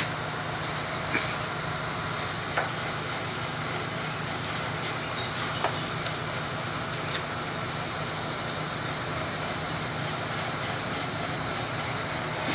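Sprayer pump running steadily with a constant hum and hiss as termiticide is forced through a hose to an injection rod pushed into the soil for a subterranean termite ground treatment, with a few faint ticks.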